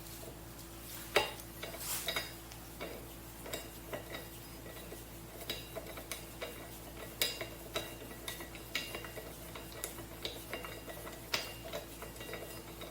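Irregular light metallic clicks and clinks of metal pump parts and tools being handled, over a faint steady hum.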